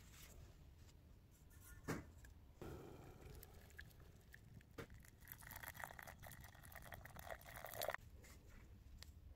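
Faint sound of water poured from a jug into a stainless steel saucepan onto a piece of leather. It starts about two and a half seconds in, grows fuller, and cuts off suddenly near the end. A single knock comes just before the pouring.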